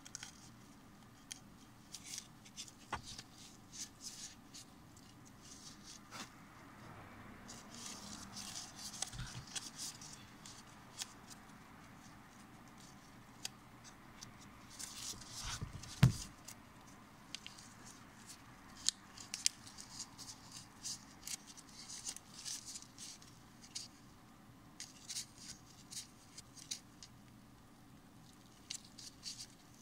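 Thin plastic film of a sealed single-date pack crinkling and crackling under gloved fingers as it is worked at the sealed edge, in irregular clusters of small crackles, with one sharp click about halfway through.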